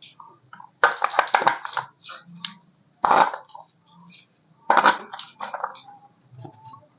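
Handling noise of a toy and its packaging: three short bursts of clattering and rustling, about a second in, at three seconds and near five seconds.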